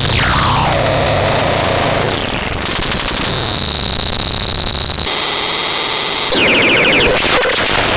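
Manticore Supersonic 24S electronic siren running through its tone patterns. A wail falls away at the start, then comes a steady shrill tone, then a pulsing multi-tone pattern, then stepped tones and a fast warble near the end.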